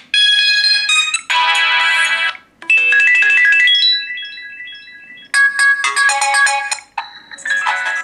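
Stock ringtones of a Samsung Galaxy S (GT-I9003) previewed one after another in the phone's ringtone picker: about five short synthesized melodies, each cut off abruptly as the next one starts. A chiming one in the middle fades away before the next begins.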